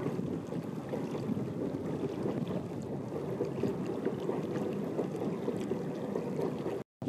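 Steady low wind noise rumbling on the microphone, mixed with the wash of water, with no bird calls; the sound cuts out completely for a moment just before the end.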